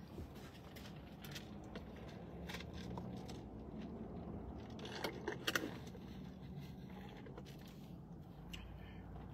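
Quiet handling and drinking sounds in a vehicle cabin: scattered small clicks and scrapes over a low steady hum. A short cluster of louder sips from a cup comes about five seconds in.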